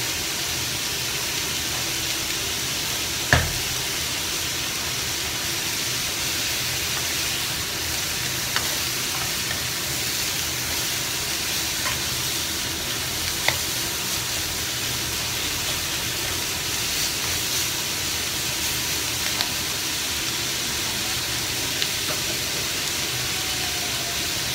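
French beans, carrot and minced pork sizzling steadily in a hot wok while being stir-fried with a wooden spatula, which scrapes and now and then knocks against the pan; the sharpest knock comes about three seconds in.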